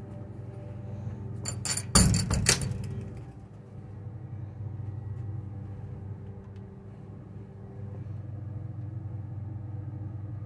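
A quick cluster of sharp knocks and a clatter about two seconds in, over a steady low hum.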